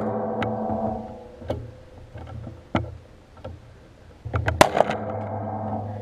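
Steel lock and bike rack ringing after a Ramset powder-actuated nail-gun shot at a U-lock. The ring fades over about a second, with a few sharp metallic clicks. About four and a half seconds in, a quick clatter of metal strikes sets the metal ringing again.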